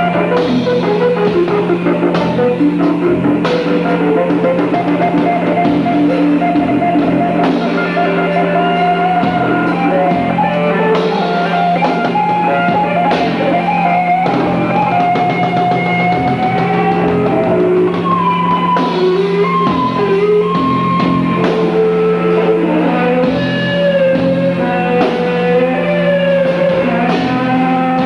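Live rock band playing loudly: electric guitar carrying melodic lines over a drum kit, with a steady low drone underneath.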